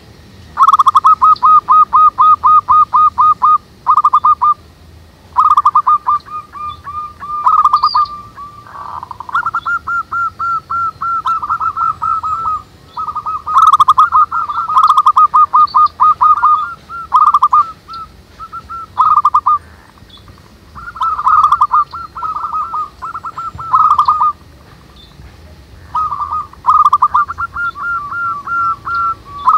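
Several zebra doves (perkutut) cooing: loud runs of rapid, repeated notes that come in bursts every few seconds, at times two birds at slightly different pitches overlapping. Faint chirps of other birds sound higher up in between.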